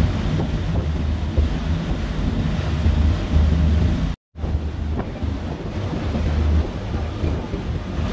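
Wind buffeting the microphone over the rush of water aboard a moving ferry, a steady heavy rumble; the sound cuts out for a moment about four seconds in.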